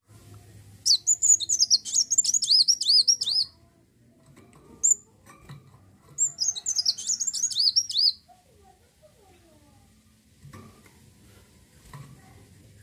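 Kolibri wulung (an Indonesian sunbird) singing in full voice: two long runs of rapid, high, arching chirps, with a single short note between them.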